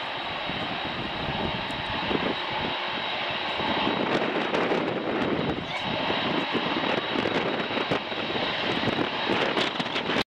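Twin General Electric CT7 turboprop engines of a CASA CN-235 running as it rolls along the runway, growing louder about four seconds in. Gusty wind buffets the microphone.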